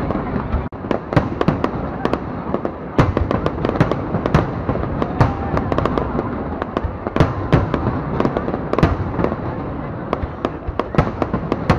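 Fireworks display going off: a rapid, irregular run of sharp bangs, several a second, over continuous crackling.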